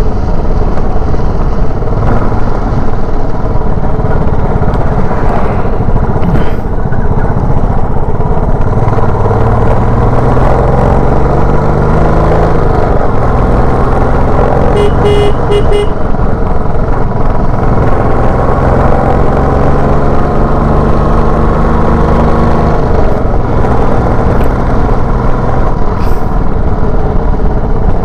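Motorcycle running at road speed, its engine note drifting up and down, under a steady rushing noise. A vehicle horn sounds briefly about halfway through.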